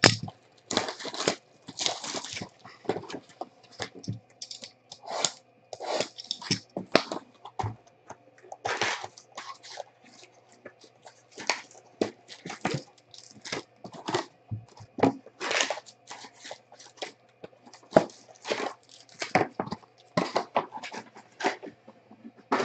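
Foil-wrapped Bowman Chrome trading card packs crinkling and rustling, with cardboard scraping, as a hobby box is opened and the packs are pulled out and stacked. The sound comes in many short, irregular bursts.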